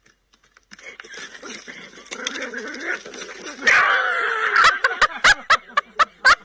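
Small fluffy dog barking: a drawn-out cry about three and a half seconds in, then a rapid run of short, sharp yaps, about three or four a second.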